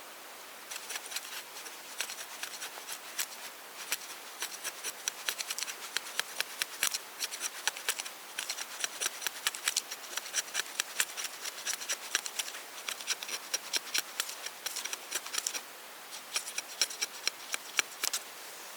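A rapid, irregular run of small crisp clicks and scrapes, several a second, with a short pause near the end.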